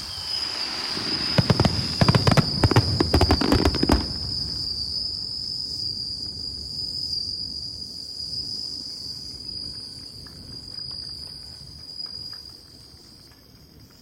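Fireworks bursting in a rapid volley of sharp cracks and low booms for about the first four seconds, then stopping. A steady high insect trill, like crickets, carries on under the bursts and after them.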